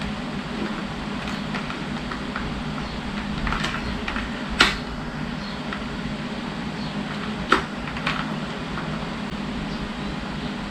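Sharp plastic clicks and knocks as a GoPro chin mount is worked into a full-face motorcycle helmet, with two louder snaps about a third and two thirds of the way through. A steady low hum runs underneath.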